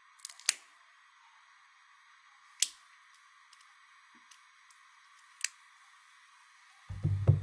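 A few sharp, separate clicks, the loudest about half a second and two and a half seconds in, with a short low voice sound near the end.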